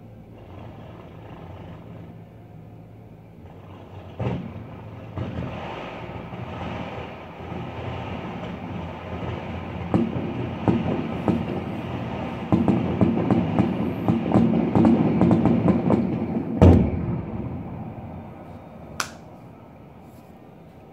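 Fireworks display heard from a distance: a rolling rumble of bangs and crackling that builds, busiest in the second half, then one big bang, a last sharp pop a couple of seconds later, and the rumble dies away.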